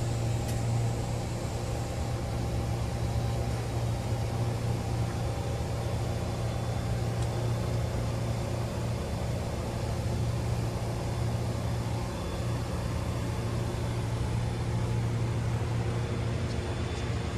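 Steady low hum of a stopped Amtrak passenger train idling at the platform, its equipment running without change.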